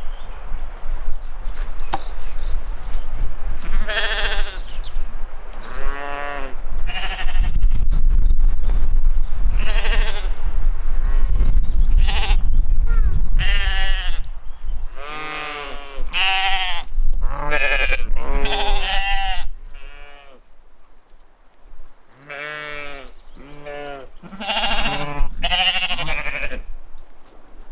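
Sheep bleating again and again, quavering calls that come one after another and overlap in places. A low rumble sits under the calls in the first half.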